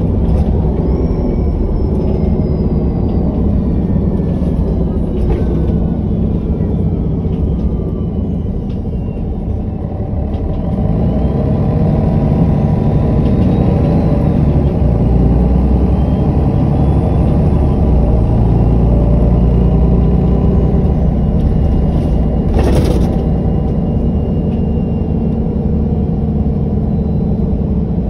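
MAN NG313 articulated bus's diesel engine running, with falling whines over the first several seconds. The engine eases off briefly about ten seconds in, then rises again and runs harder. A short hiss of air about 23 seconds in.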